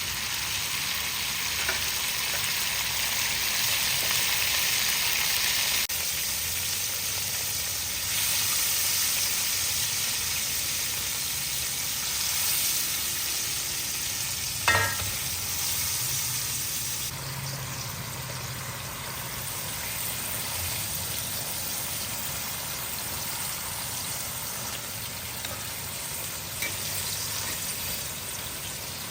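Hot oil sizzling steadily as food fries, with a single sharp clink about halfway through.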